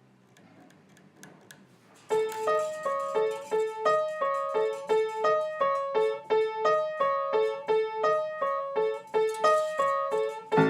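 Piano music: after about two seconds of near quiet, a piano begins a repeating figure of single notes, about two to three a second.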